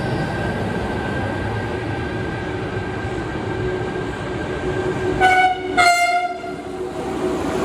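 FS E.405 electric locomotive running away along the platform with a steady faint whine over its running noise. About five seconds in, a train horn gives two short blasts, from the approaching ETR 500 Frecciarossa high-speed train.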